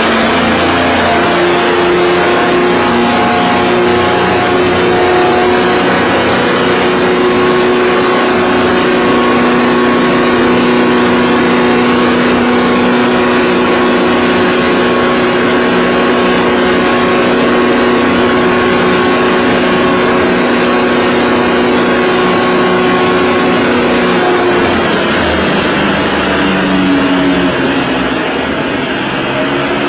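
Diesel radial aircraft engine running hard with its propeller turning: a loud, steady drone with several held tones. About 25 seconds in the pitch shifts and the sound eases off a little.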